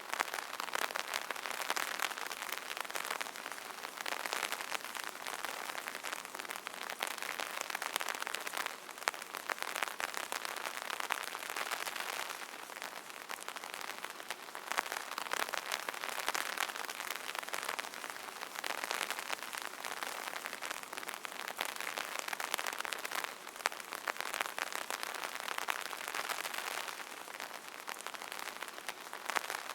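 Rain pattering on an umbrella canopy: a dense, steady patter of drops that swells and eases every few seconds.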